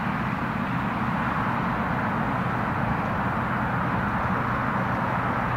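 Twin-engine jet airliner on final approach: a steady rushing jet-engine noise that grows slightly louder near the end as the plane nears.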